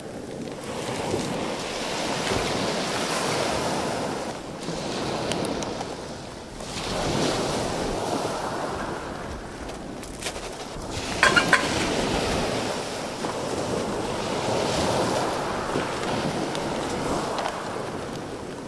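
Sea waves breaking and washing over a shingle beach, swelling and fading every few seconds, with wind buffeting the microphone. A short rattle of sharp clicks sounds about eleven seconds in.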